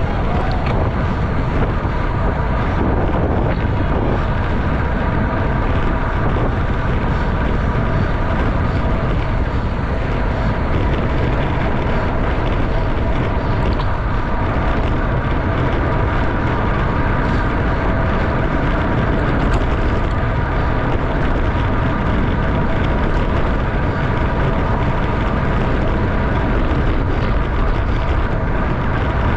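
Wind rushing over a bicycle-mounted camera's microphone at racing speed, about 25 to 32 mph, a steady rushing noise with a faint hum from the bike's tyres and drivetrain underneath.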